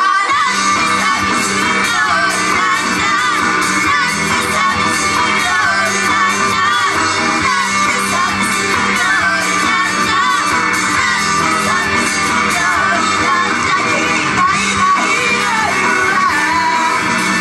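Live idol-pop performance in a club: a loud, dense pop-rock song with female singing, the audience shouting along.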